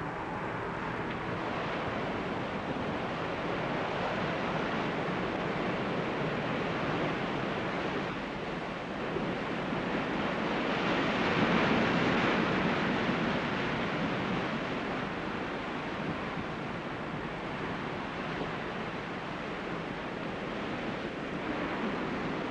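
Ocean surf washing in steadily, with one wave swelling louder about halfway through.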